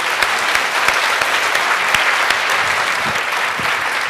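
Audience applauding, a steady round of clapping that begins to tail off near the end.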